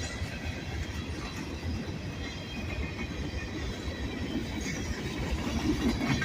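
Norfolk Southern manifest freight train's cars rolling past, a steady rumble of steel wheels on the rails, growing a little louder near the end.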